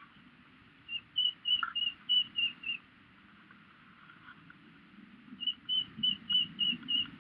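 A bird calling: two runs of about seven short whistled notes each, evenly spaced at roughly four a second, the second run coming a few seconds after the first.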